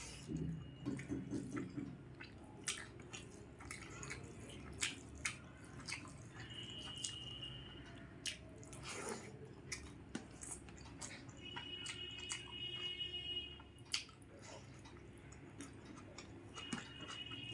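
Close-up chewing and wet mouth smacks of someone eating rice with egg curry, with frequent short clicks. A high steady tone comes and goes three times in the background.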